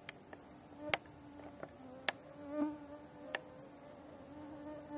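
Summer night insects: a steady high-pitched chirring, with a flying insect buzzing close to the microphone and swelling loud twice as it passes. A few sharp clicks stand out about one, two and three seconds in.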